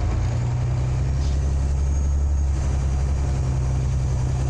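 Scania OmniLink CL94UB city bus's engine heard from inside the cabin: a steady low drone as the bus drives along. Its note shifts right at the start.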